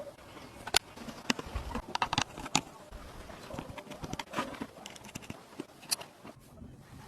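Irregular sharp clicks and knocks at an uneven pace, with no steady motor sound.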